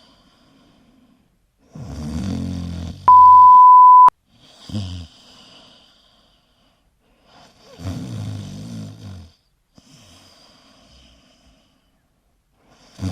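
A Pomeranian snoring in its sleep: drawn-out snores a few seconds apart, with a short one about five seconds in and another starting near the end. A loud, steady beep about a second long cuts in about three seconds in.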